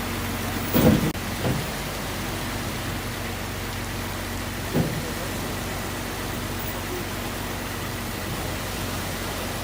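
Steady rushing water noise, broken by brief low thuds about a second in and again about five seconds in.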